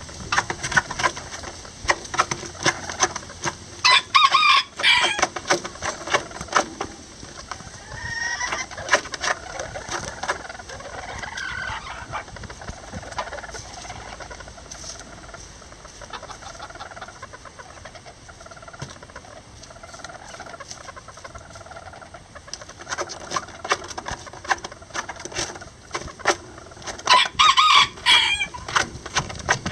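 Lavender Old English Game bantam chickens in a straw nest: soft clucking, with two short loud calls, one about four seconds in and one near the end, over a steady crackle of straw being shifted.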